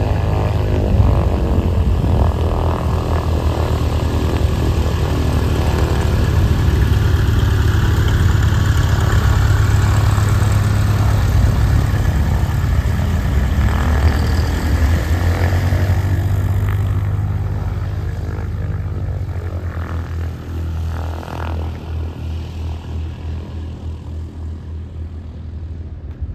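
Piper PA-44 Seminole's twin piston engines and propellers running at taxi power as the plane rolls past close by, loudest about halfway through. The drone then fades and takes on a pulsing throb near the end.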